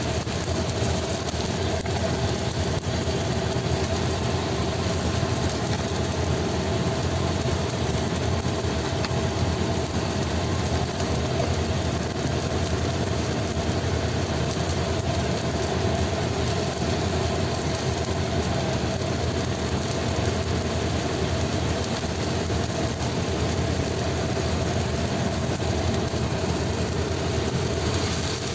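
A steady mechanical hum with a few held tones in it, unchanging throughout.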